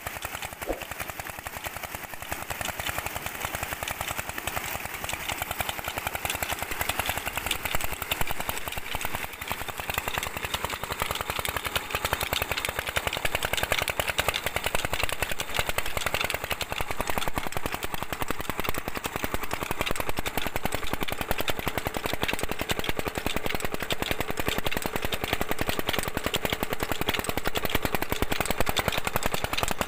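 A 16 hp diesel engine running steadily as it belt-drives a tube-well pump, with a strong stream of water gushing from the outlet pipe and splashing into a concrete tank.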